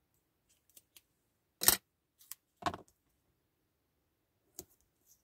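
Craft materials being handled on a work table: a few short, separate clicks and rustles, the loudest about one and a half seconds in, another just under three seconds in, and a small click near the end.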